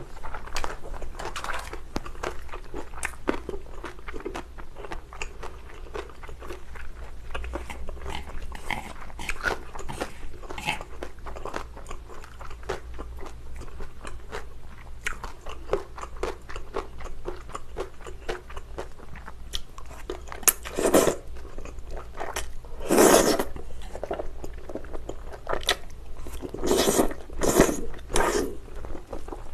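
Chinese glass noodles in spicy sauce being stirred with chopsticks in a bowl, making many small wet, sticky clicks, then eaten close to the microphone. Chewing is heard, with a few louder slurps of the noodles in the last third.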